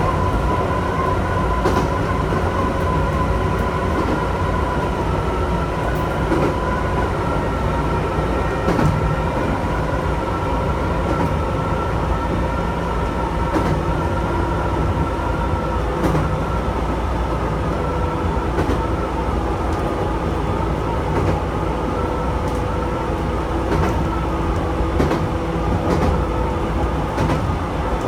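Chichibu Railway electric train running at a steady speed, heard from inside the front of the car. A steady whine sits over the running noise, with irregular clicks from the wheels.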